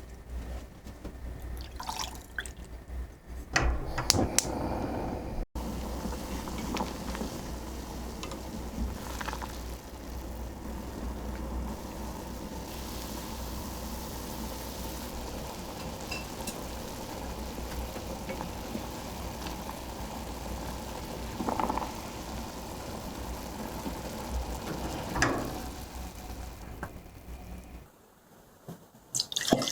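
Liquid pouring and running steadily, with a few knocks and clinks along the way.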